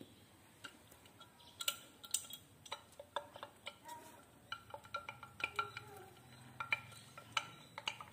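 Irregular sharp clicks and clinks of hard plastic as the feed neck of a Ka-band VSAT transceiver is twisted and worked loose from its housing, some clicks with a brief ringing tone.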